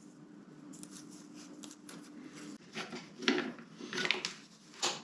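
Short scrapes and clicks of parts and wiring being handled by hand, four or five in the second half, over a faint steady hum that cuts off about two and a half seconds in.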